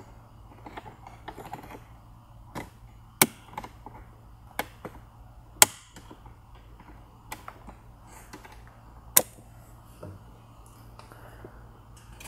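Plastic dash trim and its retaining clips clicking and snapping as a trim tool pries the vent surround off a VW Golf Mk7 GTI dashboard. A scattered series of sharp clicks, the loudest three about three, five and a half and nine seconds in.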